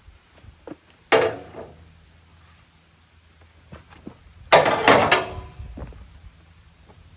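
Heavy wooden knocks as a red oak log is worked with a cant hook and wooden wedges on the sawmill bed: one sharp knock about a second in, then a quick run of three louder knocks about four and a half seconds in, with a few light taps between.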